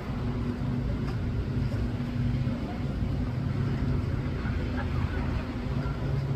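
Watercraft engine running at a steady speed: a low, even drone under a haze of water and wind noise.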